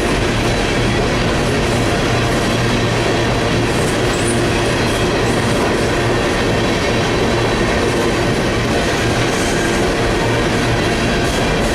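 Empty coal cars of a freight train rolling past at speed, a loud, steady rumble of steel wheels on the rails.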